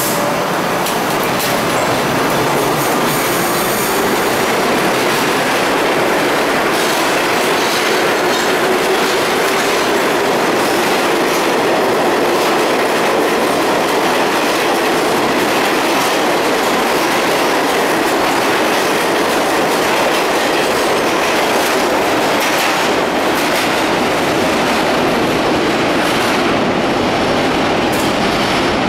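Vintage New York City subway cars of the R12, R14, R15 and R33 classes running through an underground station without stopping: a steady, loud noise of steel wheels on the rails that echoes off the station walls.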